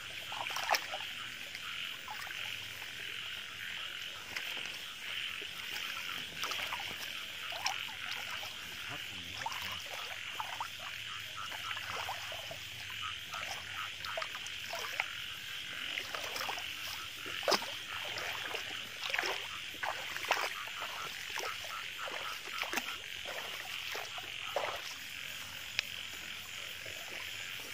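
A dense chorus of frogs calling, a steady high trilling hum, with many short sharp sounds scattered over it, thickest in the middle and latter part.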